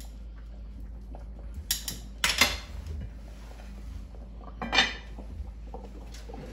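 A few light metal clinks about two seconds in, then a louder ringing clank about three-quarters of the way through as the heavy lid is set onto the enamelled cast-iron Dutch oven.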